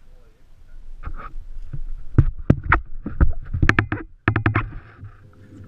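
A quick, irregular series of sharp knocks and clicks from fishing tackle being handled aboard a small boat, ending in a fast run of clicks, followed by a faint steady hum.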